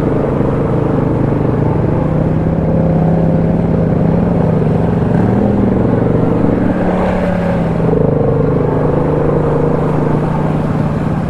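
ATV engine running steadily at low speed as the machine crosses a creek, its pitch shifting slightly twice.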